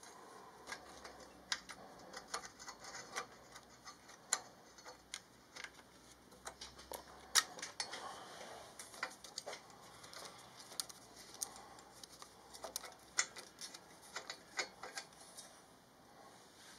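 Faint, irregular light metallic clicks, a few a second, stopping near the end: an Allen key ticking against an exhaust header bolt as it is turned, lifted and reseated. The bolt is coming out almost finger tight.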